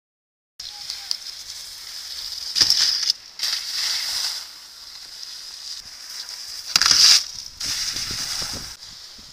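Skis scraping and hissing over packed snow in turns, with two loud scrapes about three and seven seconds in. It begins after a short gap of silence.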